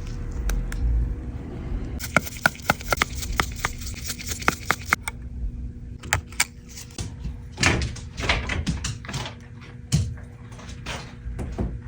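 Irregular small clicks and taps of hand tools and parts on an iPhone being opened and worked on, with a couple of brief scraping sounds a little past halfway, over a faint steady hum.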